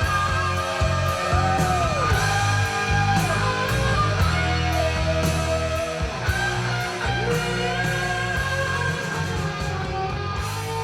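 Rock-style music with guitar played back through a 6C33C-B push-pull triode valve power amplifier and loudspeakers: sustained guitar notes bending up and down in pitch over a heavy, steady bass and regular percussion hits.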